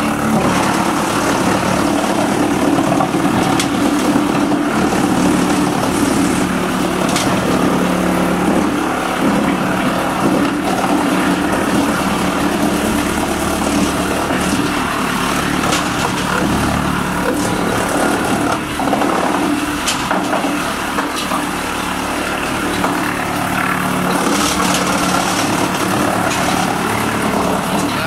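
Industrial drum wood chipper with a chain-plate infeed conveyor running steadily, with a scatter of sharp clicks over the machine's hum.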